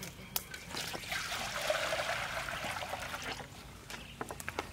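Water poured from a steel bowl into a wok over a wood fire, a hissing, splashing pour lasting about two and a half seconds, with steam rising off the wok. A few light knocks follow near the end.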